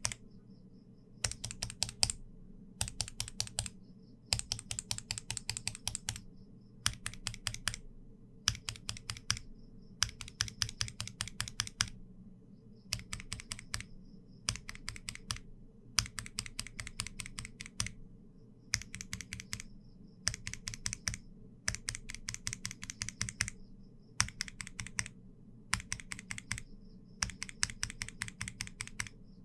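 Typing on Durock L-series linear mechanical keyboard switches, from the L1 through the L7, one after another. Quick runs of keystroke clicks about a second long, separated by short pauses.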